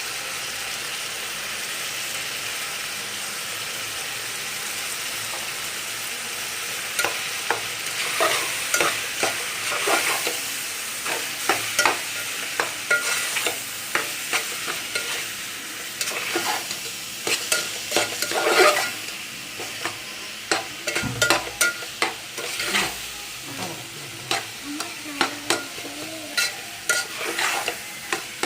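Tomato masala sizzling in hot oil in a pan, steady for the first several seconds. After that, a spoon scrapes and knocks against the pan in irregular strokes as the freshly added salt and chilli powder are stirred in.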